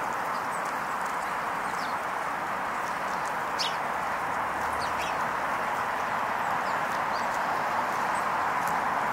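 Steady outdoor background hiss, with a few faint, brief high chirps and ticks scattered over it.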